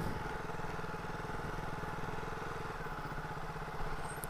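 Motorcycle engine running steadily at low revs, with an even pulsing beat.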